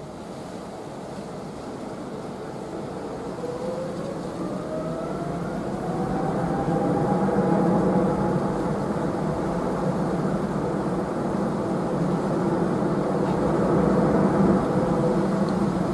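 Boeing 777-300ER jet engines on the runway: a whine that rises in pitch over a few seconds and a growing roar that gets steadily louder, typical of engines spooling up.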